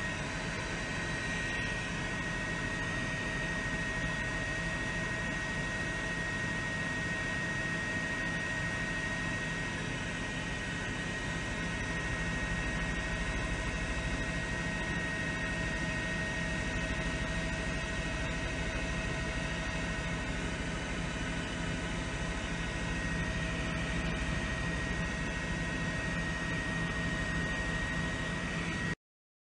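Steady engine and rotor noise from a helicopter's turbine, with a constant high whine running through it; it cuts off suddenly near the end.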